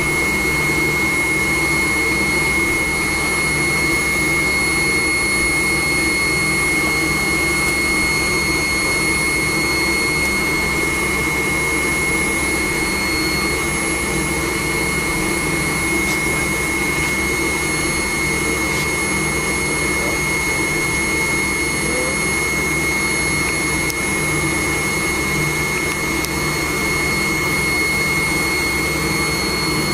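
Cabin noise of a McDonnell Douglas MD-90 taxiing, heard from inside the passenger cabin. Its rear-mounted IAE V2500 turbofans run at taxi power, giving a steady high whine over a low rumble.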